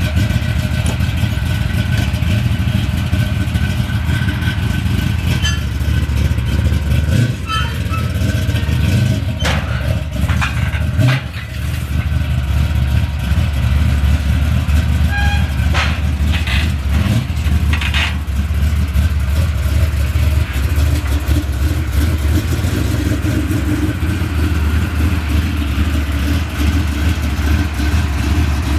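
Box Chevy Caprice's engine running with a steady, deep rumble as the car is moved off the trailer, with a couple of short knocks about seven and eleven seconds in.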